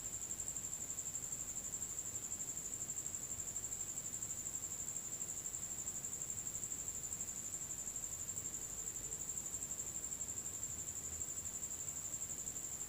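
A cricket chirping on and on, a thin high note that pulses evenly about five times a second over faint hiss.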